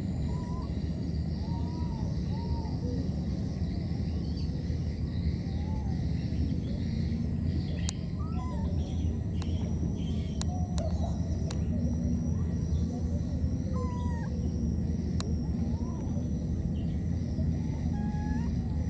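Baby macaque giving short, faint, squeaky calls now and then over a steady low rumble, with a few sharp clicks in the second half.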